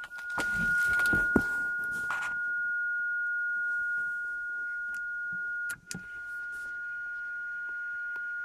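Ham receiver giving a steady beat-note tone from a 7 MHz crystal test oscillator picked up on a tripole antenna, with handling knocks in the first two seconds. About six seconds in, the tone drops out briefly with two clicks as the antenna controller is switched from LHCP/X mode to RHCP/O mode, then comes back slightly weaker.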